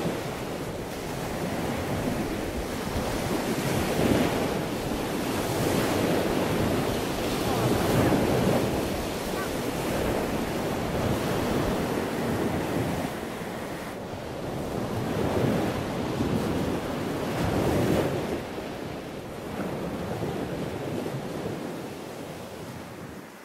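Lake Superior waves washing and surging over the rocky shoreline, swelling and ebbing irregularly every few seconds, with wind buffeting the microphone.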